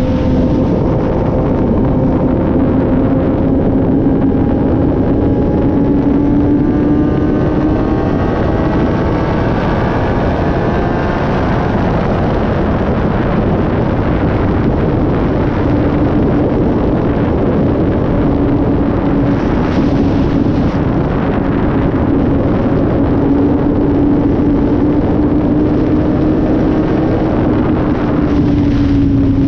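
Green Kawasaki sport motorcycle's engine running at high highway speed under heavy wind rush on the microphone. The engine note rises steadily through roughly the first ten seconds as the bike accelerates, then holds level while cruising.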